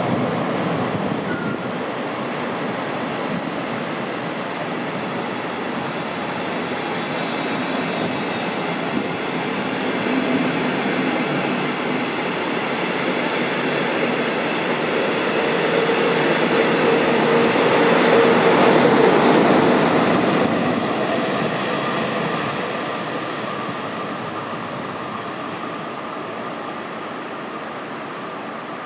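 Regional train of double-deck coaches hauled by a DB class 111 electric locomotive rolling past, wheels running on the rails, with a faint steady tone. The noise swells about two-thirds of the way through, then fades as the train draws away.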